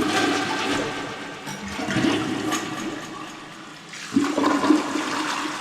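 A newly installed toilet being flushed for the first time, water rushing from the tank through the bowl, the rush swelling again sharply about four seconds in.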